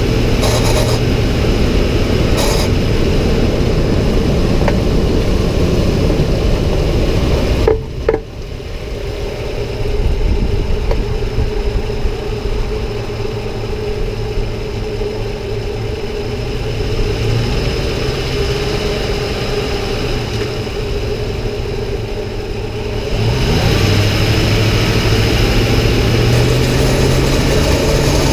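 2006 Ford F-150 pickup running on the road, a steady engine and road noise with a low hum. About eight seconds in it drops off sharply and runs quieter, then grows louder again a little before the end.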